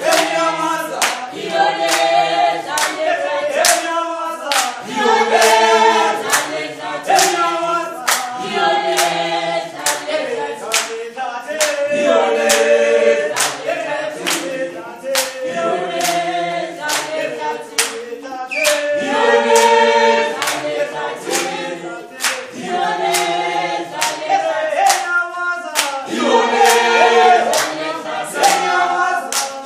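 A group of voices singing a revolutionary song together, with steady hand-clapping at about two claps a second keeping the beat.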